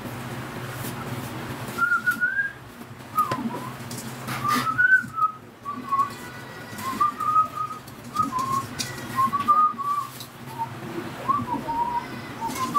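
A man whistling a melody in short, sliding notes, with a few soft clicks from the ornaments he is hanging on an artificial pine tree.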